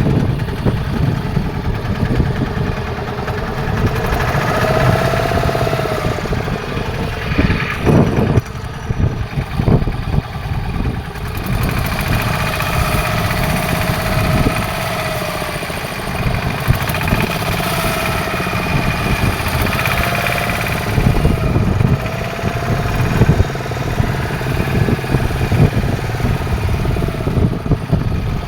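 Fishing boat's engine running steadily, its pitch rising and falling gently a few times.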